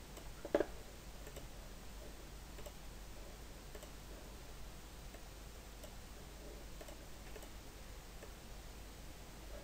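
Faint computer mouse clicks, one louder click about half a second in, over a low steady hum.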